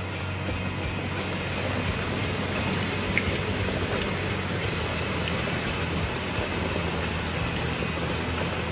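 Heavy rain pouring down, a dense steady hiss that grows a little louder after a couple of seconds.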